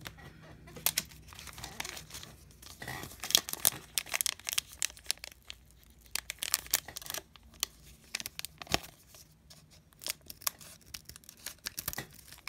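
A Pokémon Rebel Clash booster pack's foil wrapper being handled, crinkled and torn open by hand, heard as several runs of sharp crackles and rips.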